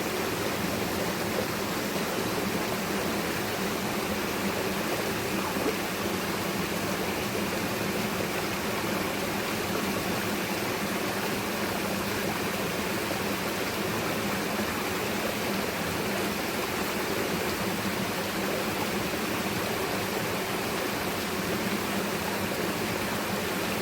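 Rushing water flowing steadily, an even unbroken hiss and rumble with no distinct splashes or breaks.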